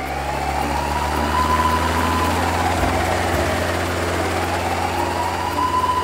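Cartoon sound effect of a police helicopter: a steady low engine and rotor drone, with a siren wailing slowly up and down, about one rise and fall every four seconds.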